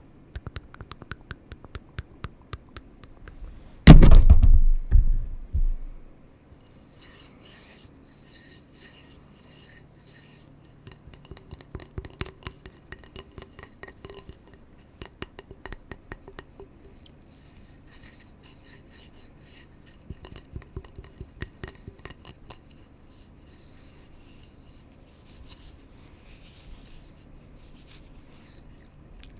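Close-miked ASMR tapping and scratching on hard objects: a dense run of small ticks and scrapes, some with a faint ringing edge. About four seconds in there is one loud thump.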